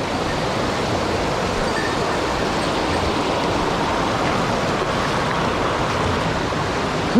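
Rushing water of a mountain stream, a steady even noise.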